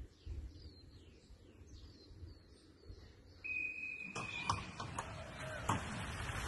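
Small birds chirping faintly, then a steady high beep lasting under a second. Then a run of metallic clatters as the transport trucks' crate flaps open, and a rising rush of wingbeats as thousands of racing pigeons are released at once.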